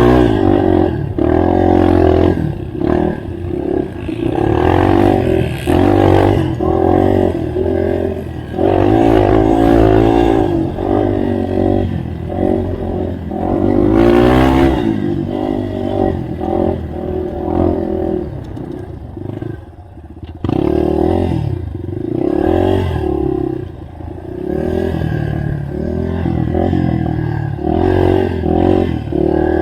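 Yamaha TT-R230 trail bike's single-cylinder four-stroke engine running under load, its pitch rising and falling repeatedly as the throttle is opened and closed, easing off briefly about two-thirds of the way through.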